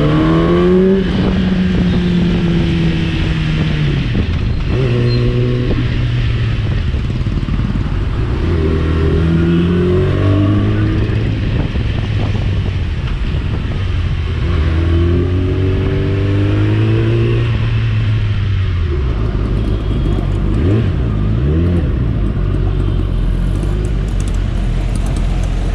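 Motorcycle engine pulling hard through the gears, its note climbing and then dropping at each shift several times over, above a steady rushing noise. About nineteen seconds in the engine note fades, leaving the rushing noise and low hum.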